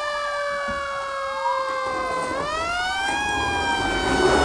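Fire truck siren wailing: its pitch slowly falls, swings up again about two seconds in, then slowly falls once more. A rougher noise builds under it near the end.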